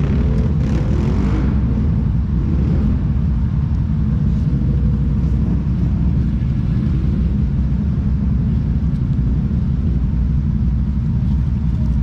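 Off-road vehicle engine running with a steady low rumble, its pitch wavering slightly in the first couple of seconds.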